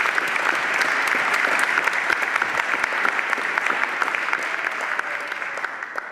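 Congregation applauding, many hands clapping together, fading out near the end.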